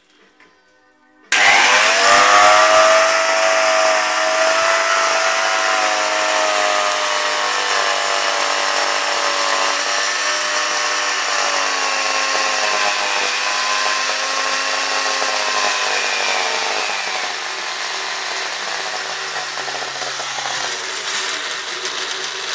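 Half-burnt electric angle grinder switched on about a second in and left running free on the floor, its motor giving a loud, steady whine with a slightly wavering pitch. The motor is being run until it burns out; it gets somewhat quieter near the end as it starts to smoke.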